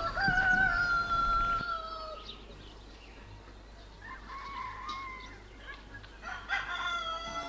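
Roosters crowing: a long call at the start, a fainter one about four seconds in, and another near the end.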